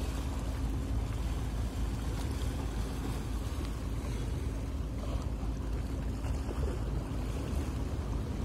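Steady low rumble of a boat's engine with a faint held hum, mixed with wind buffeting the microphone.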